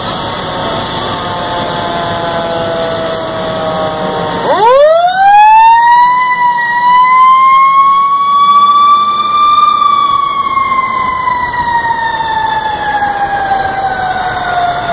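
Fire engine's siren. It is falling slowly in pitch at first, then sweeps up sharply about four and a half seconds in, holds high and climbs a little, and after about ten seconds slowly falls again.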